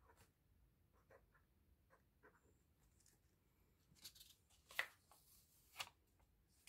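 Quiet handling of plastic binder pocket pages and card sleeves: faint scratches and small clicks, then a few sharper crinkles about four seconds in, with the loudest two near five and six seconds.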